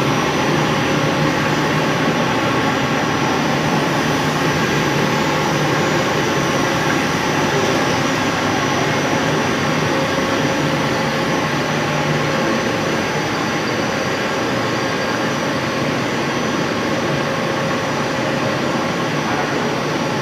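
LLDPE blown-film extrusion machine running steadily: an even mechanical hum and air rush with a few faint steady tones.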